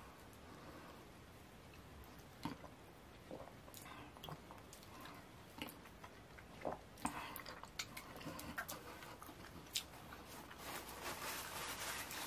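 Close-up wet mouth sounds of eating fufu with ogbono soup by hand: scattered lip smacks and chewing clicks. Near the end these give way to a denser, louder rustling as a paper tissue is handled.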